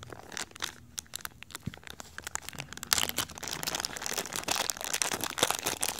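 Clear plastic zip bag crinkling as it is handled around a small USB meter, a run of irregular crackles that gets denser and louder about halfway through.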